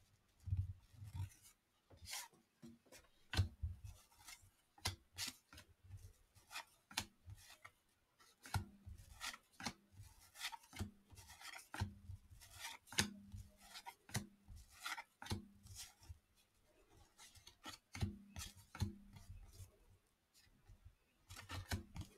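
Cardboard baseball cards being flipped through by hand, each card sliding off the stack with a short, faint scrape, irregularly about one or two a second.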